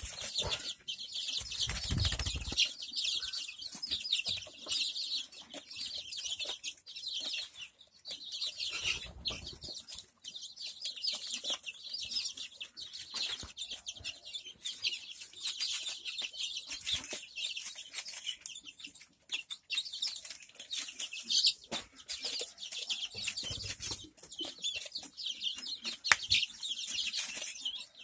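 Young desi chickens pecking grain from a plastic feeder tray: a dense patter of quick, light taps, with soft clucks and a few brief low bumps of the birds moving about.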